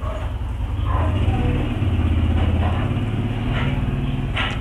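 A low engine rumble, swelling about a second in and easing after about three seconds.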